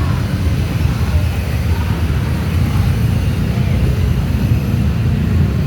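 Steady low rumble of a bus engine running close by, with no horn sounding.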